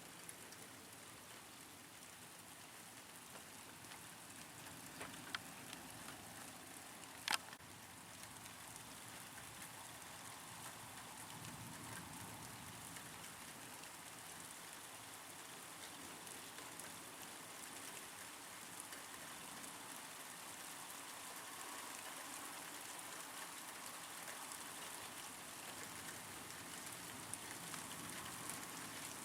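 Steady light rain falling, with two sharp ticks of drops striking something close by, about five and seven seconds in.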